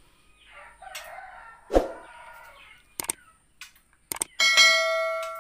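Subscribe-button animation sound effect: a few quick mouse clicks, then a bright bell chime about four and a half seconds in that rings on and fades. It is the loudest sound here. Earlier, a faint call and a single sharp knock about two seconds in.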